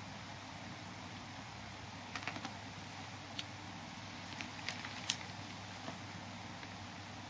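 Scattered light clicks and taps of a kitten playing with a toy, a few close together about two seconds in and the sharpest just after five seconds, over a steady faint hum.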